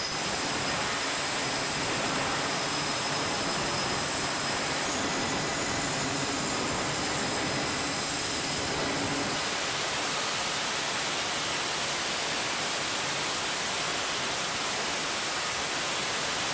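Steady rushing noise of aircraft engines running on a carrier flight deck, with faint steady whining tones over it. The sound shifts slightly about five and nine seconds in.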